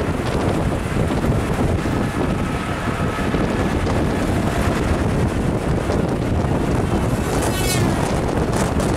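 Wind buffeting the microphone from a moving vehicle, with the steady rumble of the engine and tyres underneath as it travels at speed along a highway.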